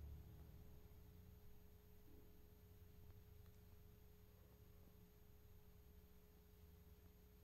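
Near silence: room tone with a faint steady electrical hum.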